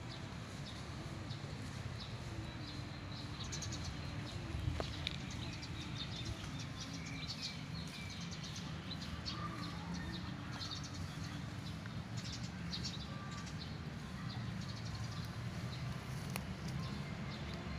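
Small birds chirping in quick, scattered clusters of short high notes over a low, steady background rumble.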